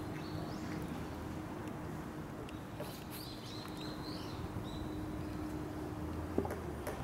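Short, high chirping calls, a couple early and a quick run of several about three seconds in, over a steady low background hum. A single sharp click near the end.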